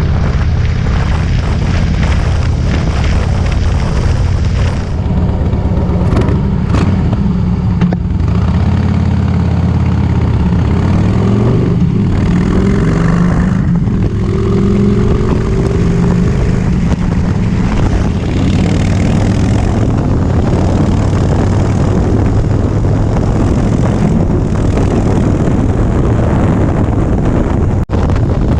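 Harley-Davidson Softail Breakout V-twin with a Vance & Hines exhaust and Screamin' Eagle air filter, running on the road. Its loud exhaust note changes pitch a few times with the throttle, including rising glides near the middle.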